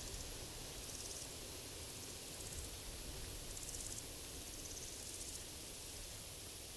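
Crickets giving short, high, rapidly pulsed buzzing trills, one every second or so, over a steady hiss of forest background noise.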